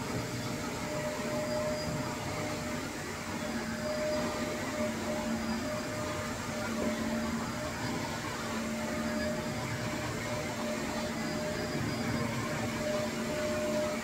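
Shark upright vacuum cleaner running steadily as it is pushed back and forth over carpet, a continuous motor hum and airflow rush that rises and falls slightly with the strokes.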